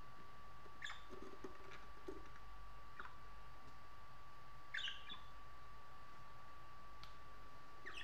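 Budgerigars giving a handful of short, high chirps spaced a second or more apart, the loudest almost five seconds in, over a faint steady whine.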